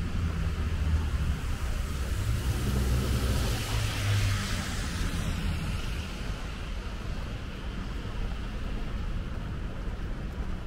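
Road traffic on a wet street: a steady low engine rumble, with a vehicle passing on the wet road and its tyre hiss swelling and fading about four seconds in.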